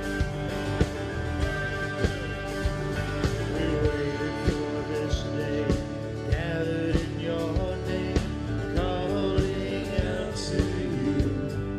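Live contemporary worship band playing: a drum kit keeps a steady beat under electric bass and strummed acoustic guitars, and singing joins partway through.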